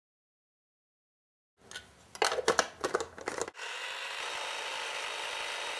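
Silent at first. Then a knife taps a series of chops on a plastic cutting board, and about three and a half seconds in a small White-Westinghouse electric mini food chopper starts and runs steadily, blending chipotle mayo.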